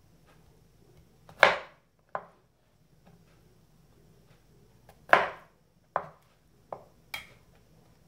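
Kitchen knife slicing a cucumber on a wooden chopping board: six separate knocks of the blade meeting the board at an uneven pace, two of them much louder than the rest.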